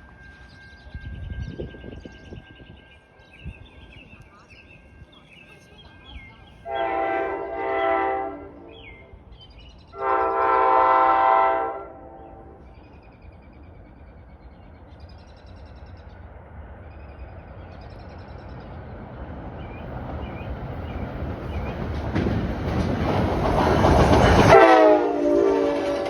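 A train horn sounds two long blasts. Then the rumble of an approaching train builds steadily for about ten seconds. The horn sounds again near the end as the train arrives.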